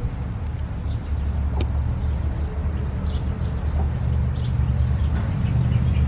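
Faint short high chirps of small birds, repeating every second or so over a steady low rumble, with one sharp click about a second and a half in.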